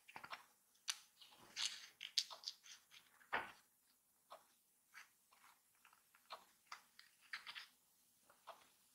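Fingers handling and pressing a small cardstock model house on a cutting mat: light irregular taps, clicks and crinkles of card, with a fuller tap about three and a half seconds in.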